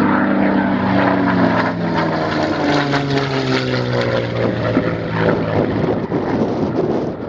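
Propeller-driven aircraft flying past, its engine note falling steadily in pitch as it goes by, then trailing off into a rushing noise.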